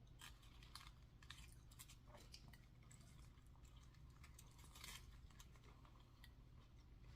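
Faint chewing of fast food, with soft scattered mouth clicks and small crunches.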